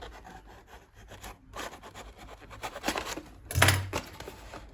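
Plastic packaging and computer case fan parts being handled: irregular rubbing, scraping and rustling, with a louder rustle and a low bump a little past halfway.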